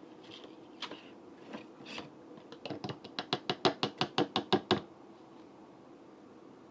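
A few single knocks, then a quick even run of sharp taps, about six a second for roughly two seconds, against a kitchen container while thick blended smoothie is poured out.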